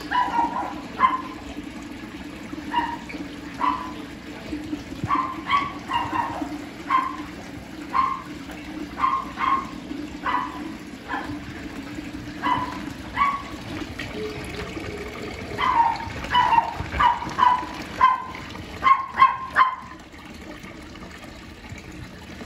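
Water pouring steadily into a small garden pond, over which an animal gives short, pitched calls, one or two a second, with a brief lull a little past the middle.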